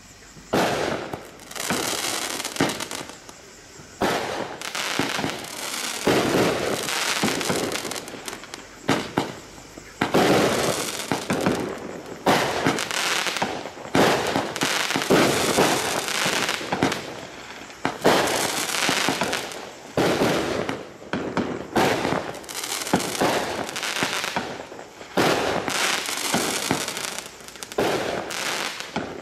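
Consumer fireworks cake (Fisherman FP9008 'Under Control') firing shot after shot, roughly one every two seconds. Each sharp report trails off in a second or two of crackling as the burst breaks.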